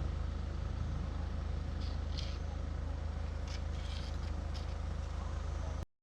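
Car engine running with a steady low, evenly pulsing rumble, with a few faint clicks in the middle.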